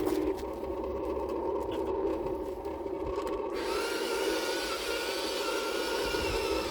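Small electric motors and gearboxes of radio-controlled construction models running with a steady whine, joined about halfway through by a second, higher wavering whine.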